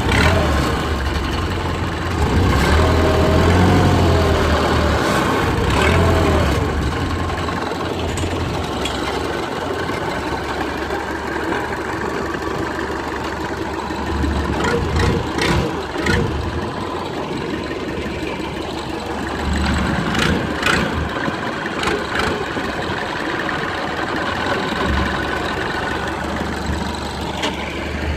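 Small fishing boat's engine running steadily at low revs, with a wavering tone a few seconds in and scattered knocks in the second half.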